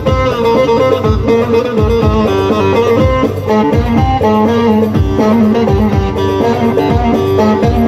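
Electric bağlama (saz) playing a fast picked instrumental melody over a steady low drum beat.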